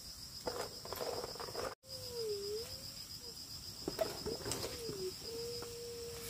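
Insects trilling steadily in a fast, even pulse. Over it come several low, smooth, wavering calls in the second half, and a few light knocks.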